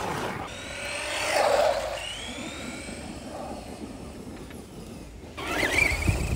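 Electric motor of a Traxxas Stampede RC monster truck whining as it drives, its pitch gliding up and down as the truck speeds up and slows, loudest about a second and a half in. Near the end a low rumble comes in under a fainter whine.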